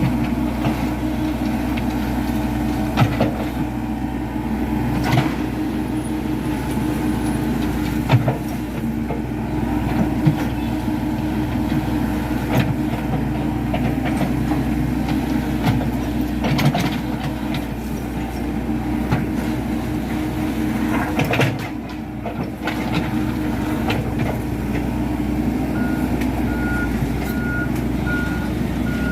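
Komatsu PC78 hydraulic excavator's diesel engine running steadily while working, with occasional sharp knocks every few seconds. A regular beeping alarm starts near the end.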